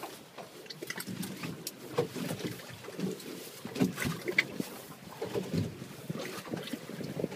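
Choppy sea water slapping and lapping against the hull of a small fishing boat, with irregular knocks and splashes and no engine running.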